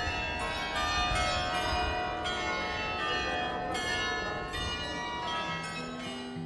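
Carillon bells of the Munttoren clock tower ringing out a tune, many struck notes overlapping and ringing on, over a low rumble. A strummed guitar comes in near the end.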